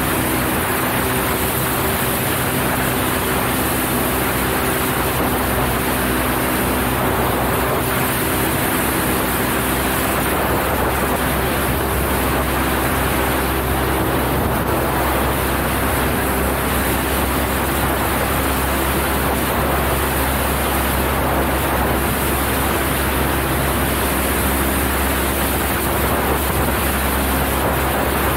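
Cessna 172 light aircraft in flight: a steady drone from its piston engine and propeller under a broad rush of wind noise.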